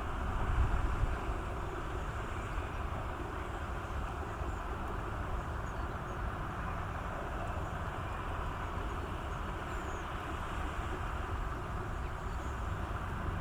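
Steady outdoor background noise: a low rumble and hiss with wind buffeting the microphone, gustier about a second in.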